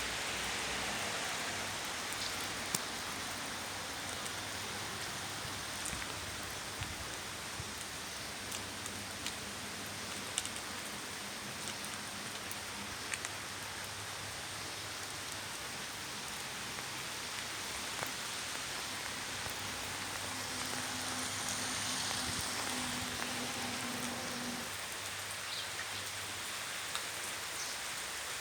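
Steady rain falling, an even hiss with scattered sharp ticks.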